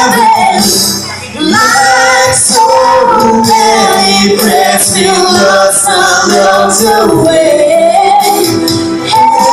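A woman and a man singing a slow ballad duet into microphones over a karaoke backing track, amplified through a PA. The voices hold long notes with vibrato, with a short dip in loudness about a second in.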